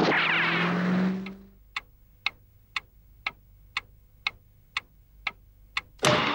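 A loud cartoon sound effect fades out over the first second and a half. Then a clock ticks steadily, two ticks a second, before loud soundtrack cuts back in near the end.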